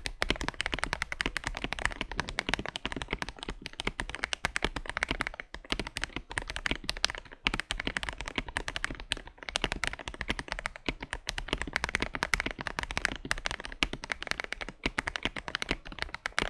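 KBD67 Lite mechanical keyboard with Gateron Milky Yellow Pro linear switches and MT3-profile keycaps, typed on quickly and continuously. It gives a dense run of key strikes with a few short pauses. The keystrokes have a muted, deep, thocky sound.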